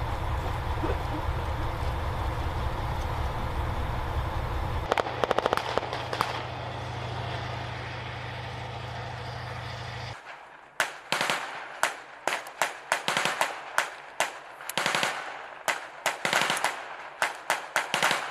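An armoured vehicle's engine running with a steady low rumble, a short rapid burst of machine-gun fire about five seconds in. From about ten seconds in, repeated bursts and single shots of small-arms fire, each echoing.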